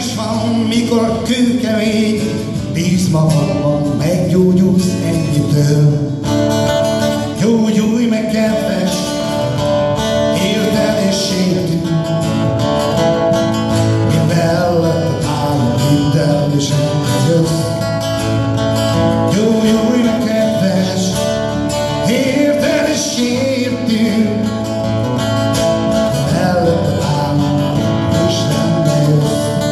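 Two guitars, an acoustic and an electric, playing a song's accompaniment together through stage amplifiers, with picked melody lines over the chords.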